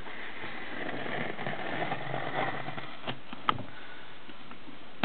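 A hobby knife slitting the packing tape along a cardboard box's seam, a scratchy scraping for about two seconds. About a second later come two short sharp knocks, the second louder.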